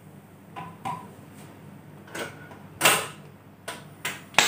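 A scatter of sharp clicks and knocks at irregular intervals, the loudest about three seconds in, over a faint low hum.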